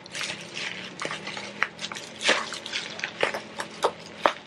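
Parcel packaging being unpacked by hand: rustling and crinkling with a quick series of sharp clicks and snaps of paper and plastic. A steady low hum runs underneath.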